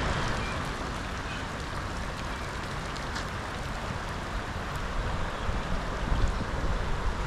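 Floodwater rushing across a flooded path, a steady rushing noise, with wind rumbling on the microphone that grows gustier about five seconds in.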